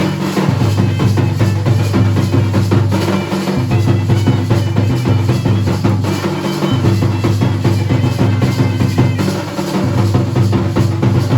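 Dhol and nagada drums played together in a loud, continuous rhythm.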